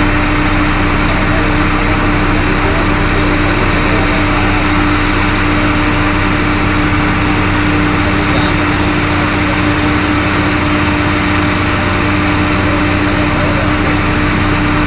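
Oil drilling rig machinery running steadily: a loud, constant engine-like drone with a strong unchanging hum.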